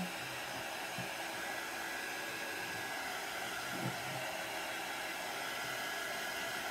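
Steady hiss of moving air from a running fan-type motor, with a faint even hum underneath.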